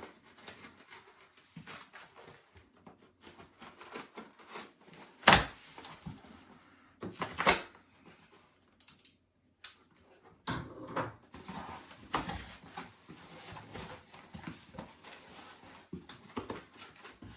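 Packing tape being ripped off a cardboard box and the box being handled. Irregular ripping, scraping and rustling noises, the loudest about five and seven and a half seconds in.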